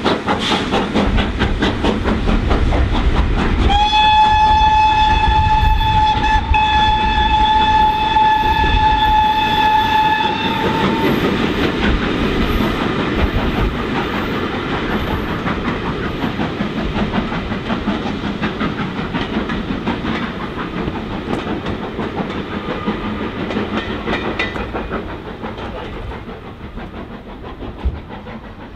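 GWR Castle Class 4-6-0 steam locomotive 5029 Nunney Castle departing hard, its exhaust beating as it pulls away. About four seconds in, its whistle sounds one long steady note for about seven seconds. Then the exhaust and the clickety-clack of the coaches' wheels over the rail joints fade as the train draws away.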